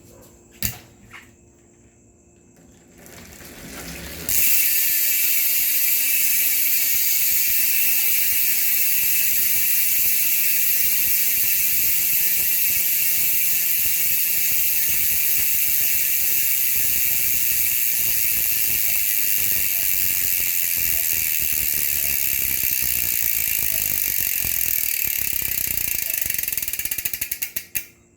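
GUB six-pawl bicycle hub freewheeling: its pawls click over the ratchet ring in a loud, fast buzz that starts about four seconds in. Near the end the buzz slows into separate clicks and stops as the wheel comes to rest.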